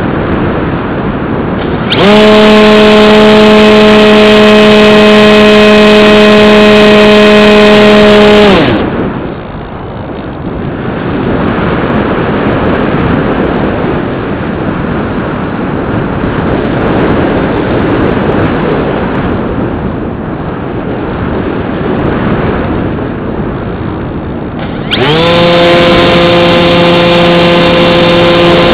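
Bixler 2 RC plane's brushless electric motor and pusher propeller, heard from on board: about two seconds in the motor spins up quickly to a steady whine, cuts out after about six seconds leaving only wind rushing past while the plane glides, then spins up again near the end at a slightly lower pitch.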